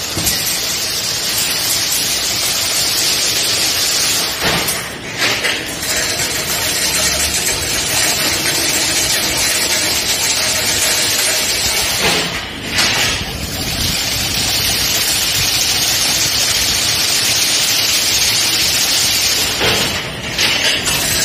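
Automatic chain-link fence-weaving machine running with a loud, steady mechanical rushing noise. The noise breaks briefly, with a few sharp knocks, about every seven to eight seconds.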